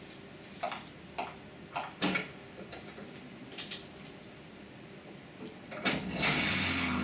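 A few scattered sharp clicks and light knocks, then near the end a video's soundtrack starts from the room's speakers with a sudden loud rushing noise over a low rumble.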